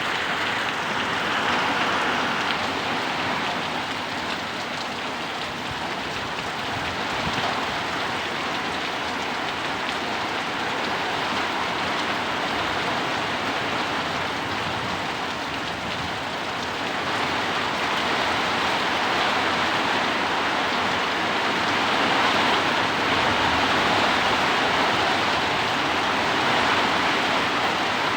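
Heavy rain pouring down in strong wind: a steady, dense hiss that swells slightly now and then.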